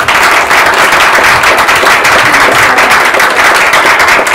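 A small audience applauding: dense, steady clapping.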